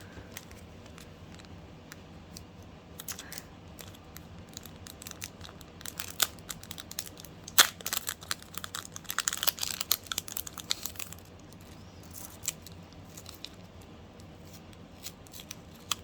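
Plastic packaging crinkling and being torn open by hand, a run of crackles that gets busiest in the middle, with one sharp snap about seven and a half seconds in.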